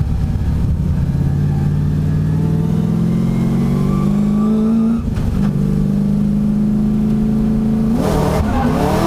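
Drift car engines under hard acceleration, pitch climbing steadily with one gear change about five seconds in. Near the end the revs swing up and down and a noisy hiss of tyre noise joins as the cars go into their drift.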